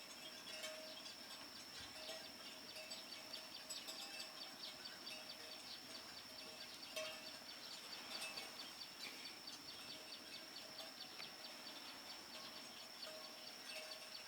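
Faint wetland ambience: a steady high-pitched insect drone throughout, with scattered small chirps and ticks over it.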